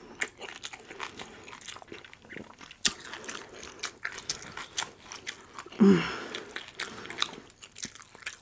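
Close-up eating sounds: wet chewing, smacking and crunchy bites of rotisserie chicken, with many short clicks. About six seconds in there is a brief hum-like vocal sound, the loudest moment.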